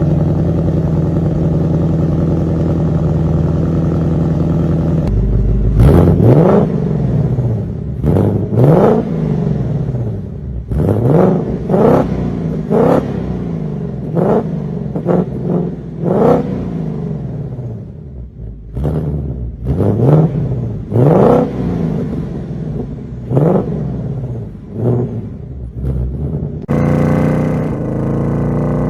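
2024 Ford Mustang Dark Horse's 5.0-litre V8 exhaust: it holds a steady note for about five seconds, then is revved in a string of about a dozen quick throttle blips, each rising sharply and falling back, and near the end settles into a louder, higher, steady run.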